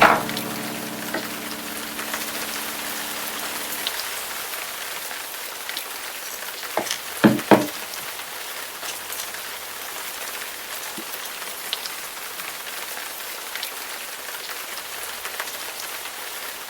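Steady rain falling. At the start, a low sustained note rings out and fades away over about four seconds. About seven seconds in there are three short, dull thumps, the loudest sounds in this stretch.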